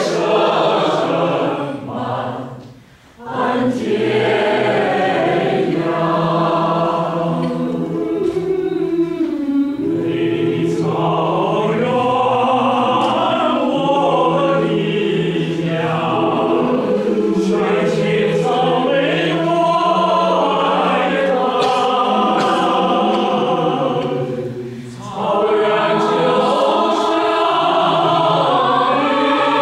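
A choir singing together in several parts under a conductor, with two brief pauses between phrases, a short one about three seconds in and another near the end.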